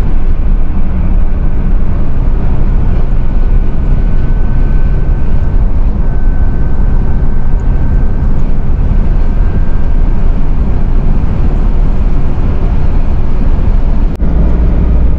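Lorry's diesel engine and tyre noise droning steadily inside the cab while cruising on a motorway. The low rumble gets heavier about a second before the end.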